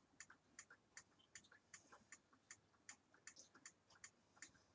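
Faint, even ticking of a wall clock, about two to three ticks a second, with weaker clicks between them, in an otherwise near-silent room.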